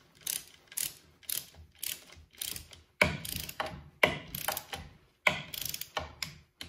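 Ratchet wrench clicking in short repeated strokes, about two a second, as it tightens the front band adjuster screw of a Mopar 904 automatic transmission.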